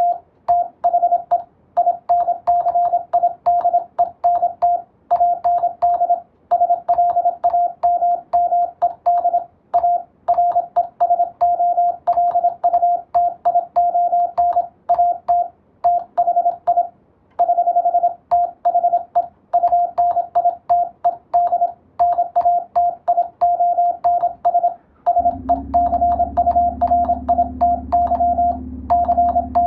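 Morse code (CW) practice: a single steady beep tone keyed on and off in rapid dots and dashes, with short gaps between characters and words. A low steady hum comes in near the end, under the keying.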